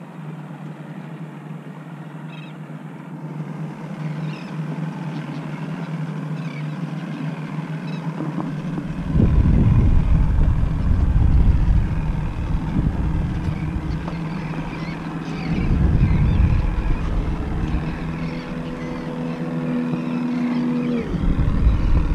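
Motorboat engine running with a steady hum, while gusts of wind buffet the microphone from about nine seconds in. A higher steady hum joins for a few seconds near the end.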